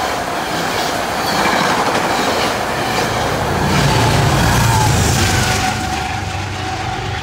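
Metro-North push-pull passenger train passing close at speed, its coaches rushing by with wheels clicking over the rail joints. The diesel locomotive pushing at the rear goes by about four seconds in, the loudest part, and then the sound fades.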